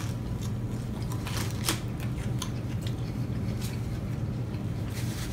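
Eating sounds of people chewing big burgers: scattered small clicks and wet mouth noises, a little louder about a second and a half in, over a steady low hum.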